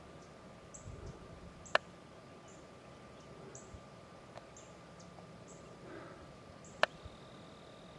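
Two sharp, short clicks about five seconds apart, the first about two seconds in and the second near the end. Under them is a quiet outdoor background with a faint high chirp repeating about once a second.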